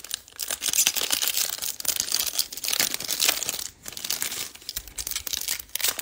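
Foil wrapper of a baseball card pack being torn open and crinkled by hand: a continuous crackly crinkling made of many small tears and clicks, easing briefly about four and five seconds in.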